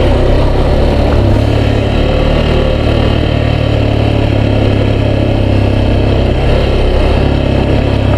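Yamaha XTZ 250 Lander's single-cylinder four-stroke engine running steadily as the motorcycle rides along a dirt road.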